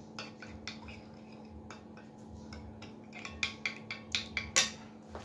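Spoon stirring thin flour batter in a glass bowl, scraping and clinking against the sides, with a quick run of clinks in the second half and the loudest one near the end.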